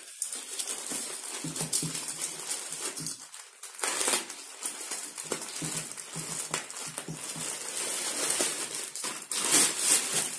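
Plastic courier mailer being torn open and handled, crinkling and rustling, with louder rustles about four seconds in and near the end as the plastic-wrapped door curtains are pulled out.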